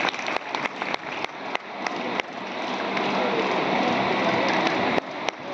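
Audience applauding: separate claps at first that fill into steady applause, thinning out briefly near the end.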